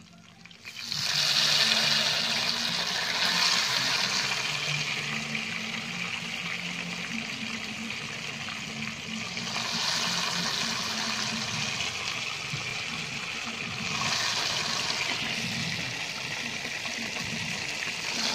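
Marinated chicken leg pieces deep-frying in hot oil in a kadai: a loud, steady sizzle that starts suddenly about a second in as a piece goes into the oil, and swells again three more times as further wet pieces are dropped in.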